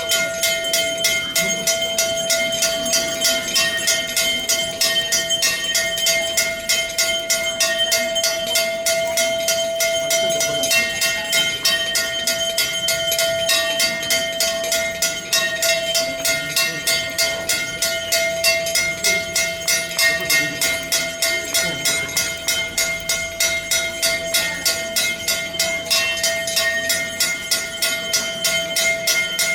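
Temple bells rung rapidly and without pause during aarti, about five strikes a second, over a sustained ringing tone.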